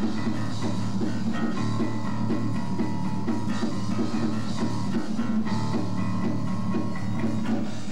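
A rock band playing: a plucked electric guitar over a drum kit, in a steady, even groove.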